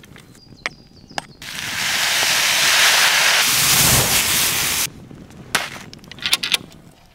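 Tiger prawns sizzling on a hanging fire bowl over an open fire: a loud, steady hiss that starts about a second and a half in and stops abruptly near five seconds. After it come a few sharp knocks and clicks of wooden branches being fitted into a metal tripod connector.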